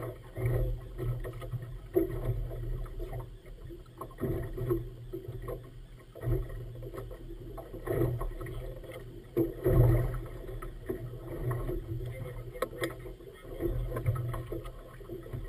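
Waves slapping against the hull of a small rigid inflatable motorboat in a light chop: irregular thumps about every couple of seconds, the loudest near ten seconds in, over a steady low rumble.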